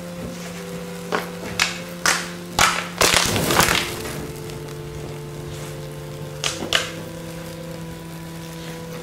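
Burning plastic toy fire truck crackling and popping: a few sharp snaps in the first three seconds, a dense burst of crackling around three to four seconds as the flames flare up, and two more snaps near seven seconds. Steady background music sounds underneath.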